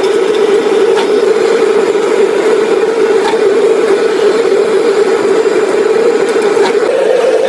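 Steady mechanical hum of running machinery, with a few faint clicks about one, three and nearly seven seconds in.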